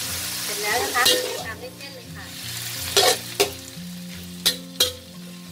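Food sizzling in hot oil in a metal wok as a metal spatula stirs and scrapes it, with several sharp clacks of the spatula against the pan.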